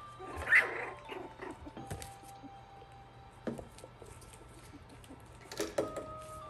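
A Maltese puppy pushing a plastic ball-in-ring toy around: scattered knocks and rattles, the loudest about half a second in, over soft background music of held notes.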